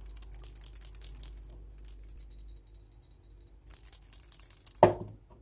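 Steel bearing balls rattling inside a hand-cast lead burbot knocker (stukan) as it is shaken: a quick metallic jingling in two spells of about a second each, with one short louder sound near the end.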